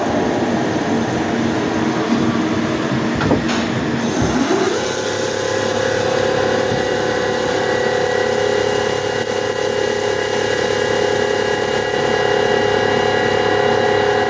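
Hyundai HIT 8 S CNC lathe running: its whine shifts in pitch for the first few seconds, then rises as the spindle speeds up about four and a half seconds in, and holds a steady pitch after that.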